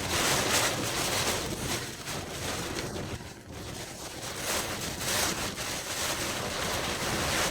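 Even rushing noise that swells and eases, of fast-running floodwater with wind buffeting the microphone.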